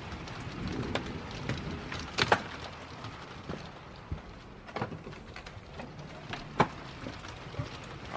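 Steady rain falling, with a few sharp taps or knocks standing out, the loudest a quick pair about two seconds in and another about six and a half seconds in.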